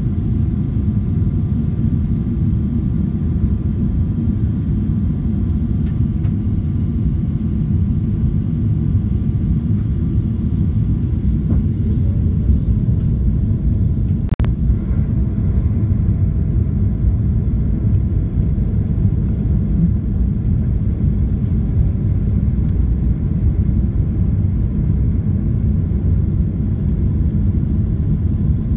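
Cabin noise inside a Boeing 777-300ER on approach: a steady low rumble of airflow and its GE90 engines, with faint steady whine tones behind it. A single sharp click about halfway through.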